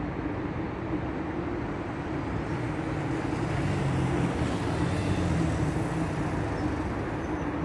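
Street traffic with a vehicle's engine running close by, the hum swelling louder in the middle and easing off again.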